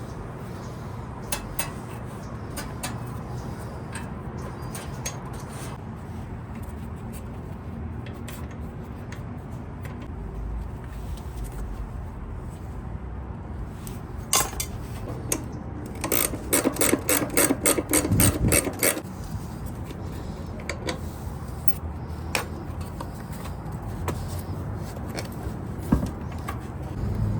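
Hand tools working on the metal parts of a vintage table saw during disassembly: scattered clicks, knocks and scrapes, with a quick run of clicks about two-thirds of the way through.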